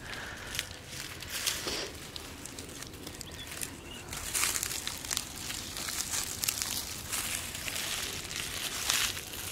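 Dry straw and grass crackling and rustling underfoot as someone walks over it barefoot, a steady run of small crackles that thickens around the middle and again near the end.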